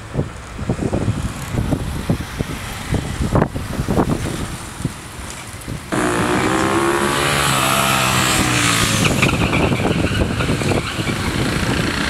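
Street sound with irregular low rumbles, then, from about six seconds in, a louder motor vehicle passing close, its engine pitch bending as it goes by.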